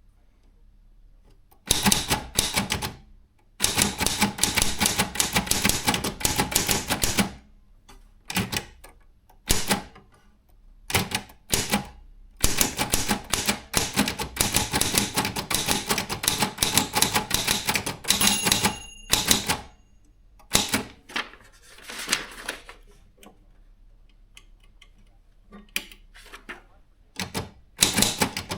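Brother Chevron/Olympia B12 manual typewriter being typed on: runs of rapid key strikes lasting a few seconds each, broken by short pauses, with a brief ring partway through.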